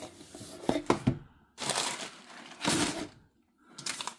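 Product packaging being handled during an unboxing: a few sharp clicks and knocks about a second in, then two short bursts of rustling.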